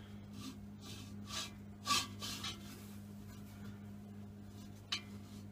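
Gloved hands shifting a steel end piece against a gas-bottle body: light scraping and rubbing of metal on metal, with a sharper clink about two seconds in and another near the end. A steady low hum runs underneath.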